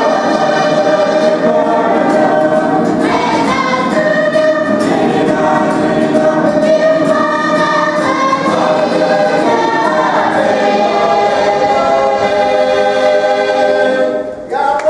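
Mixed choir of men's and women's voices singing together in harmony, holding long notes; the singing stops near the end.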